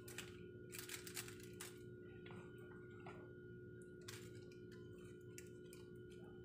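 Faint wet squishing and foil crinkling as a gloved hand rubs marinade into raw chicken pieces in a foil-lined tray: short scattered clicks and crackles over a steady low hum.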